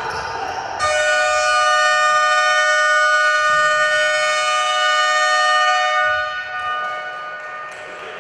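Sports hall's end-of-match horn sounding as the game clock runs out. One long steady tone starts suddenly about a second in, holds for about five seconds, then fades out.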